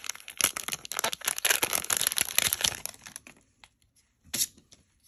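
Foil wrapper of a Magic: The Gathering booster pack crinkling and crackling as it is torn open and pulled apart, for about three seconds. Then it goes quiet, with one short tap a little over a second before the end.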